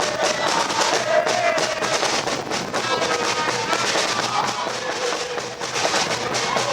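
Music with a drum beat and a held melody line, fairly loud and steady.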